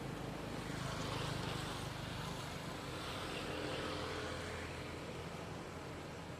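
Engine noise of a motor vehicle running, swelling in level twice and then fading.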